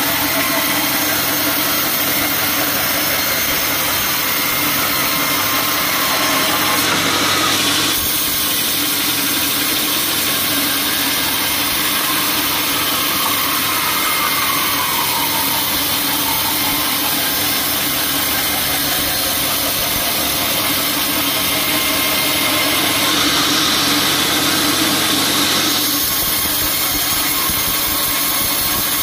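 Band sawmill running, its blade cutting through a teak log with a loud, steady mechanical noise. The hiss of the cut brightens for a spell about seven seconds in and again a little past twenty seconds.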